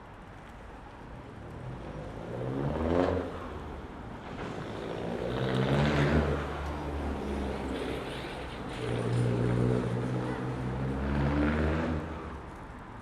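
Motor vehicles passing by one after another on a road, each engine swelling and then fading as it goes past, with the pitch dropping; the loudest passes come about three and six seconds in, and another longer one follows near the end.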